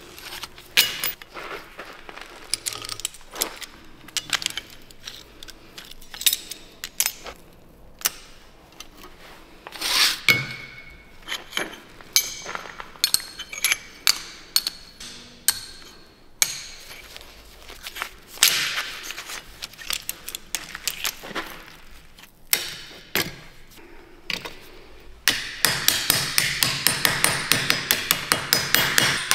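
Thin steel plates clinking and sliding against each other as they are stacked and squared by hand into a billet for Damascus steel, in scattered light clinks. About 25 seconds in, a fast, even run of light hammer taps begins on the clamped stack, aligning the plates.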